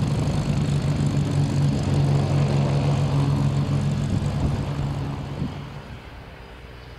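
Spitfire's V12 piston engine and propeller running at low power as the plane taxis, a steady low drone. It fades down sharply about six seconds in.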